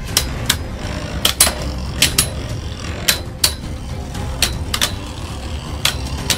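Two Beyblade Burst spinning tops, Ultimate Valkyrie and left-spinning Vanish Fafnir, whirring steadily on the plastic stadium floor, with a dozen or so sharp, irregular clacks as they collide.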